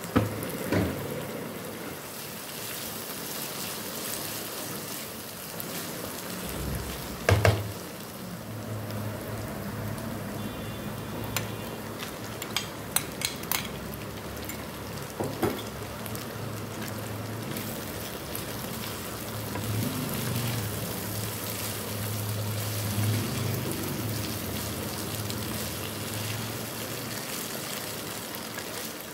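Vegetables and chicken sizzling steadily in a wok while they are stirred. A few sharp knocks and clicks come through the middle, one loud and then a quick cluster, as a steel spoon strikes the pan.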